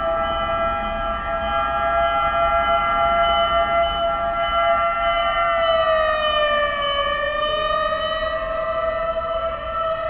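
Emergency vehicle siren wailing: a long held tone that sags in pitch about six to seven seconds in, then rises back.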